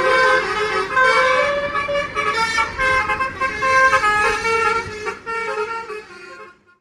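Bus 'telolet' multi-tone musical air horn (Basuri type) playing a tune of short notes, several tones at once that change pitch every fraction of a second. It fades away near the end.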